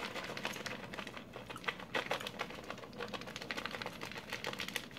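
Plastic bag of shredded cheese crinkling and rustling as it is tipped and the cheese is sprinkled by hand, a quick, irregular run of small crackles.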